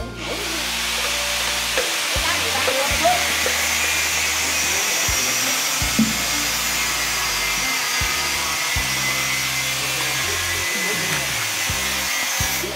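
A steady, loud hiss that starts and stops abruptly, over background music with a slow bass line, with a few faint knocks.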